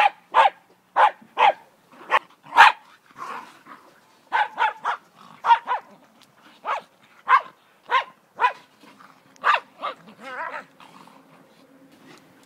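Dog barking over and over in short, sharp barks during play, roughly two a second, stopping a couple of seconds before the end.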